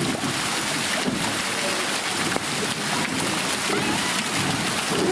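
Steady rush of falling water from a waterfall close by, an even hiss with no breaks.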